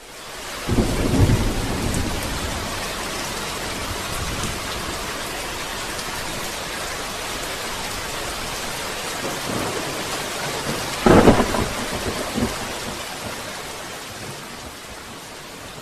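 Steady rain falling, with thunder rumbling twice: once about a second in and again, loudest, around eleven seconds in.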